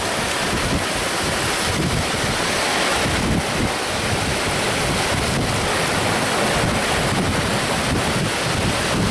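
Heavy rain pouring down in a loud, steady hiss, with gusts of wind buffeting the microphone.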